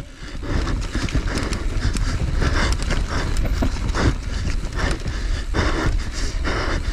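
A person breathing hard in uneven gasps, with a steady low rumble underneath.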